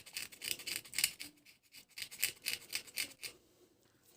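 Quick, light scraping strokes, about five a second, cleaning a burnt contact inside an electric sewing-machine foot pedal; the strokes stop about three seconds in.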